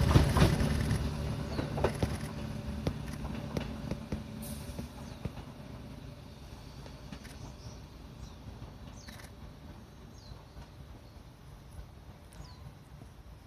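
Hakone Tozan Railway 1000-series electric train running away down the line: its rumble and wheel clicks fade steadily over the first several seconds to a faint background. A few short falling chirps come near the end.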